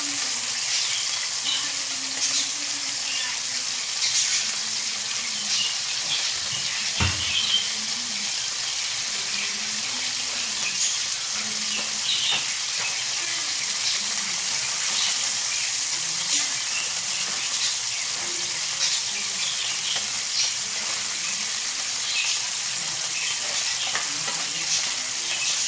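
Shellfish stir-frying in a pan on a gas stove, a steady sizzle with the scrape and clink of a utensil as it is stirred. There is one heavier knock about seven seconds in.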